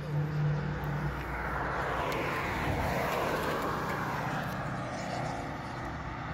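A passing vehicle: engine and rushing noise swells to a peak about three seconds in, then fades away.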